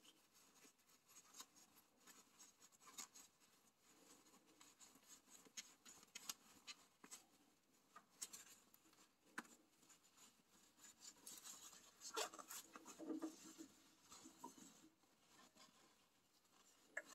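Faint rubbing and rustling of a shop rag and work gloves wiping a dirty hydraulic quick-coupler clean, with scattered small clicks.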